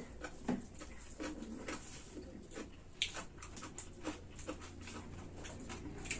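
Eating sounds of two people eating by hand from steel plates: irregular small clicks and smacks of chewing and fingers working the food, with sharper clicks about half a second in and at about three seconds.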